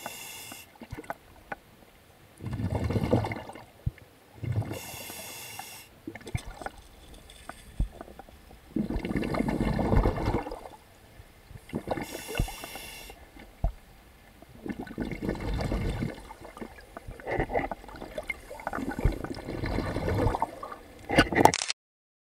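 Water sloshing and bubbling around an underwater camera held just below the sea surface, swelling and easing every few seconds. It cuts off suddenly near the end.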